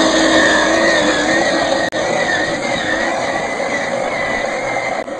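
Electric motor of a radio-controlled 1/10-scale crawler truck whining, its pitch wavering up and down with the throttle over a steady rush of noise. The sound drops out for an instant about two seconds in and again near the end.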